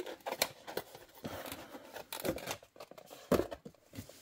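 Hands handling packaging around a small model building: irregular rustling with small clicks and knocks, loudest about three seconds in.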